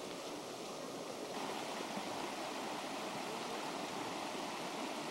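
Mountain stream rushing over rocks, a steady rush of water that grows louder and fuller about a second and a half in.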